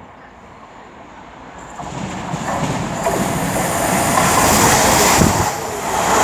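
Class 172 Turbostar diesel multiple unit approaching and passing through the station, its wheel and rail noise growing steadily louder from about two seconds in.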